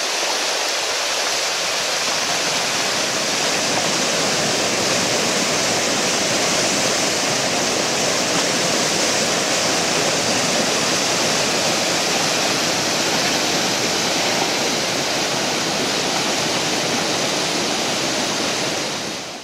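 Uji River in flood, its fast, high water churning past bridge piers in a steady, loud rush. The river is swollen by discharge from Amagase Dam.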